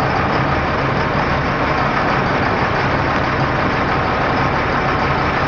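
Sportfishing boat's engine running steadily at low speed, under a constant rushing of water along the hull.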